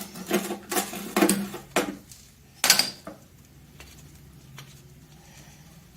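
Metal clinking and clattering of hand tools against engine parts, with one sharper metallic knock a little under three seconds in, then only faint handling ticks.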